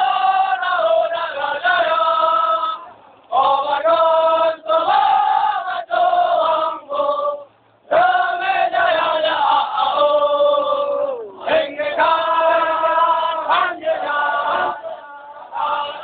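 Melody from a passing marching contingent: loud phrases of held notes that step and glide in pitch, broken by short pauses about three, seven and fifteen seconds in.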